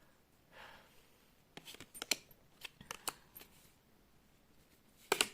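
Tarot cards handled on a table: a scatter of light clicks and snaps, thickest in the middle, with a louder cluster of clicks near the end.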